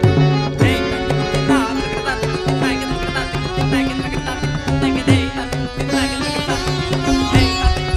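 Live Odissi devotional music accompanying a Gotipua dance: a hand-played drum with bass strokes that bend in pitch, over sustained, repeating melody notes.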